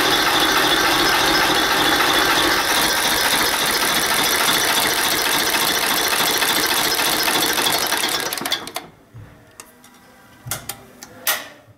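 Old Scania diesel engine running with a steady, fast mechanical clatter, then shut down about eight and a half seconds in, dying away within half a second. A few sharp clicks follow near the end.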